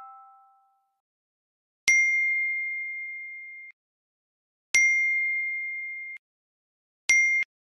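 A phone message notification tone dings three times, each a single clear chime that rings and fades: about two seconds in, about five seconds in, and briefly near the end. The tail of an earlier chime fades out at the start.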